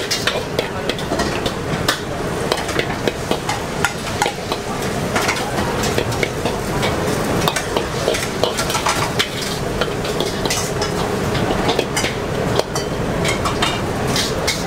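Noodles sizzling in a hot wok while a metal ladle stirs and scrapes through them, with frequent sharp clinks of the ladle against the wok.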